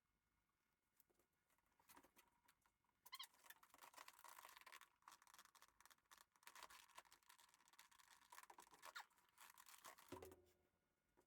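Faint handling noise: quick clicks, rattles and scraping, starting about two seconds in and stopping shortly before the end.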